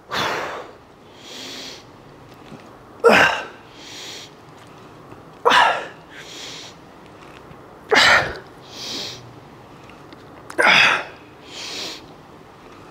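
A man breathing hard through a set of cable curls: five sharp, forceful exhalations, about one every two and a half seconds, one on each rep. Each is followed by a softer in-breath.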